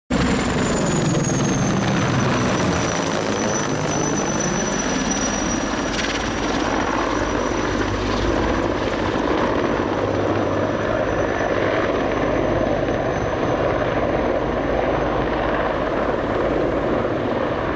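Two Mil Mi-24V Hind attack helicopters flying low past, a steady, loud rotor and turbine noise. A high whine in it drops slightly in pitch over the first couple of seconds and then holds steady.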